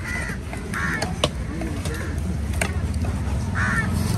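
Crows cawing about four times over a low, steady market rumble, with a few sharp knocks of a cleaver chopping tuna on a wooden block, the loudest just after a second in.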